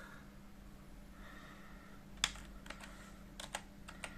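Computer keyboard keys being pressed: about six separate keystrokes in the second half, over a steady low hum.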